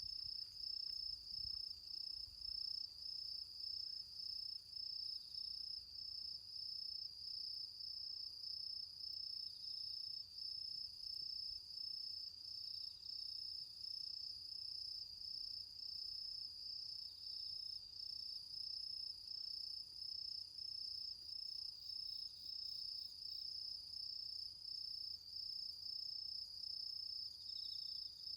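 Autumn crickets chirping: one steady, high trill broken by short, regular breaks, with a second, fainter chirping heard now and then beneath it.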